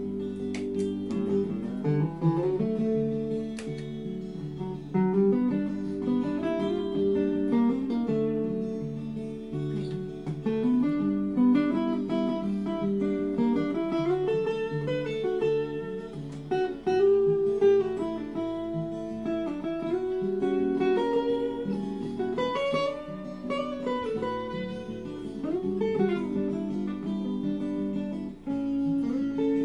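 Acoustic guitar played alone in an instrumental break: held chords under a picked melody whose notes bend up and down in pitch.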